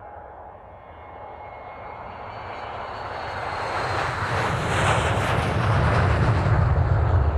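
Jet airplane approaching, its noise growing steadily louder throughout: a faint high turbine whine early on gives way to a loud rushing roar, with a deep rumble building near the end.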